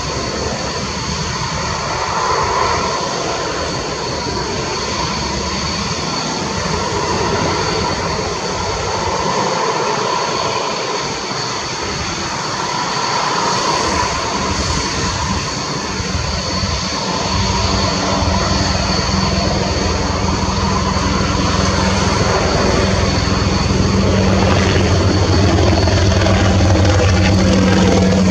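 Mirage 2000-5 fighter's single M53-P2 jet engine running at taxi power: a steady high-pitched turbine whine over a broad rushing noise. It grows gradually louder, and a low hum builds up in the second half.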